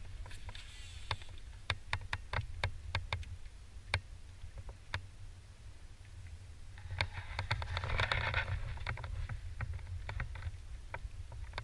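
Wind rumbling on the microphone under scattered light clicks and knocks from a fishing kayak and its gear, with a brief hiss about seven seconds in.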